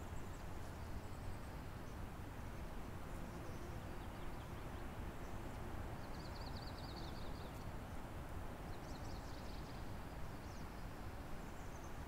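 Steady rushing of a river, with faint small birds chirping high above it. A quick trill of rapid repeated notes comes about halfway through.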